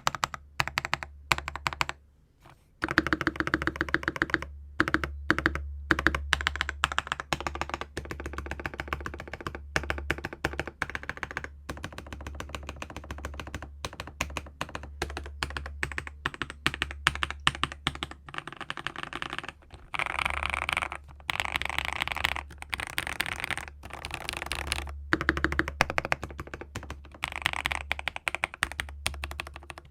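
Typing on a CIY GAS67 mechanical keyboard with lubed KTT Kang White linear switches, PBT keycaps, a polycarbonate plate and a foam- and tape-modded case. It gives a rapid, continuous stream of key clacks, with a brief pause about two seconds in.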